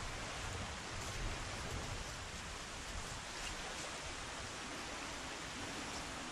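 Steady wind on the microphone over the even hiss of distant surf.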